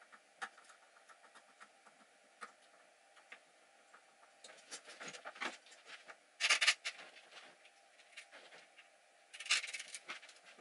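Small clicks, taps and rustles of hands handling tools and parts on a wooden workbench, with two louder, longer rustling clatters about six and a half and nine and a half seconds in.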